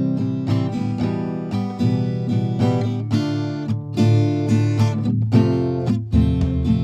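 Background music: acoustic guitar strummed in a quick, steady rhythm.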